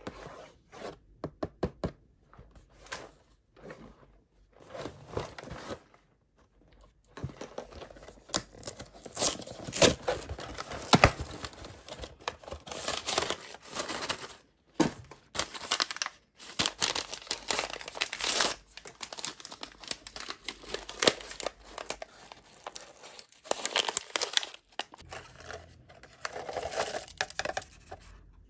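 Cardboard hot cocoa box being opened and paper drink-mix packets handled and torn, with tearing and crinkling in irregular bursts and sharp clicks. Near the end, small dried marshmallows are poured from a packet into a glass mug.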